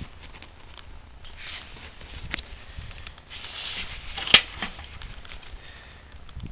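Handling noises just before a tractor start: rustling and several sharp clicks, one loud click about four seconds in. The engine is not yet running.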